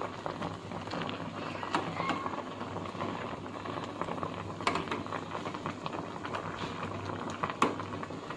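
Ramen broth bubbling at a rolling boil in a thin aluminium Korean ramyeon pot, with a metal spoon knocking against the pot a few times as broth is ladled over the egg; the sharpest knock comes near the end.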